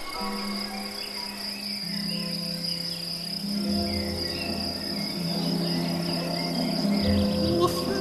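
A cricket's steady, high-pitched chirring, over slow sustained music notes.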